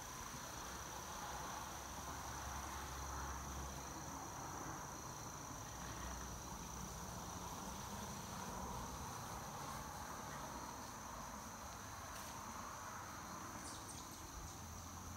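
Steady high-pitched insect chorus, a continuous shrill trill of crickets or katydids, over faint outdoor background noise.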